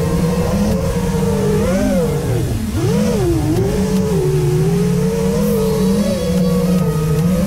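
FPV quadcopter's electric motors whining, a steady pitch that swoops down and back up a couple of times about two to three and a half seconds in as the throttle changes.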